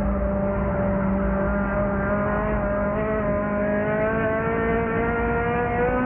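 Lightning 4 race car's engine running hard under load, heard from inside the car, steady at first and then rising gradually in pitch through the second half as the car accelerates.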